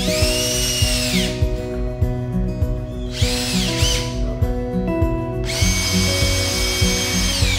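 Cordless drill whining in three bursts as it drives into a 2x4 wooden frame, the pitch rising as it spins up and falling as it slows, the last burst longer and steady. Background music runs underneath.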